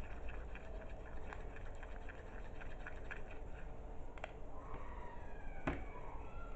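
Small plastic spoon stirring a thick paste of flour and hibiscus tea in a small bowl: soft, quick, even scraping strokes. Then two sharp taps of the spoon against the bowl, the second louder with a brief ring, as the spoon is set down.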